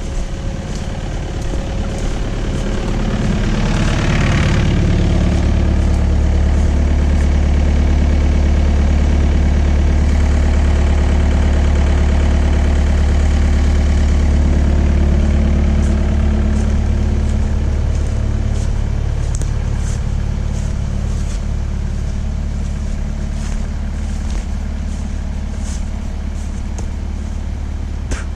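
Hyundai excavator's diesel engine running, rising in level about four seconds in and holding strong, then easing off a little after about fifteen seconds.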